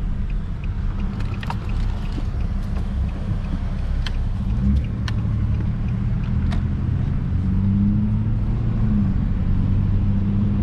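Car engine and road noise heard from inside the moving car: a steady low rumble that settles into a firmer, even engine hum about halfway through, with a few sharp clicks and taps and a faint quick ticking in the first few seconds.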